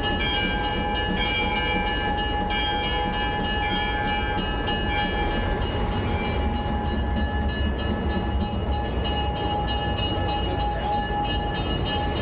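Locomotive moving slowly past, with steam engine No. 93's tender rolling by: a steady mechanical drone with several high ringing tones and a fast, regular ticking of about four a second. A deeper low rumble builds in the second half.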